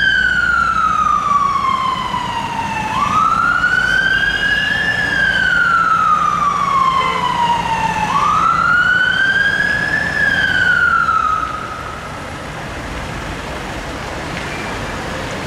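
Emergency vehicle siren on a slow wail, sweeping up and down in cycles of about five seconds, then stopping about twelve seconds in, leaving steady road traffic noise.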